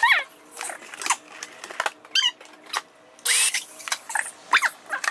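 Short, high squeaks from hands rubbing and pressing an inflated latex balloon, each gliding quickly up or down in pitch. A brief shushing hiss comes a little past halfway.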